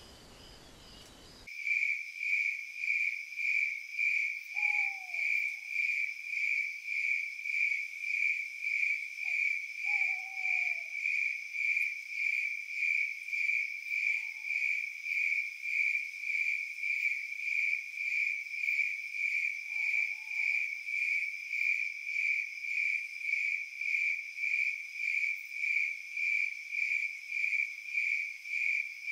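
Crickets chirping in a steady, even pulse, about one and a half chirps a second, starting about a second and a half in after a soft hushing ambience. A few faint, short falling calls sound over them, the last about two-thirds of the way through.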